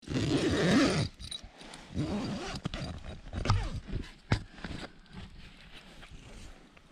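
Handling noise from a camera being gripped and set down close to its microphone. There is rubbing and scraping, loudest in the first second, then several sharp knocks and clicks.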